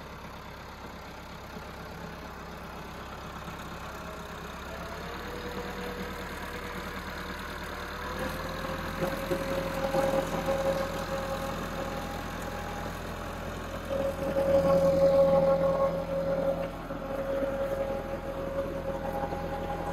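Massey Ferguson 385 tractor's diesel engine running steadily as it pulls a digger through the soil, its note growing louder about eight seconds in and loudest a little past the middle.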